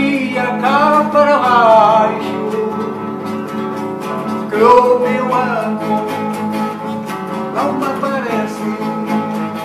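A man singing, accompanying himself on a strummed nylon-string classical guitar. The voice comes in three short phrases, with steady strumming between them.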